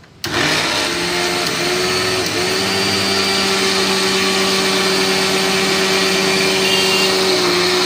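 Electric mixer grinder switched on about a quarter second in and running steadily with its steel jar fitted: a loud, even motor whine. Its pitch steps up a little over the first couple of seconds as the motor comes up to speed. The grinder, which was dead before the repair, now runs normally.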